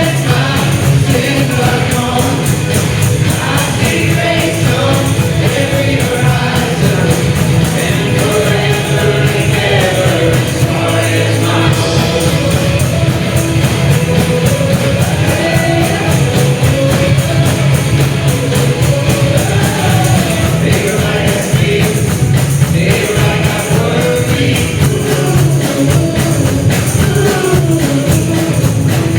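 Congregational worship music: voices singing a hymn together over a full band with a steady beat and tambourine.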